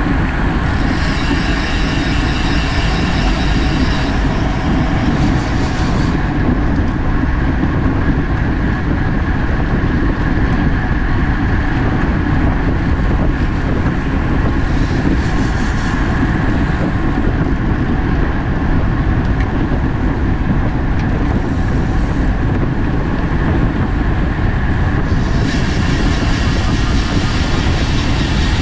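Steady rush of wind and road noise while riding a road bike in a race, loud and low, with a thinner high hiss coming and going several times.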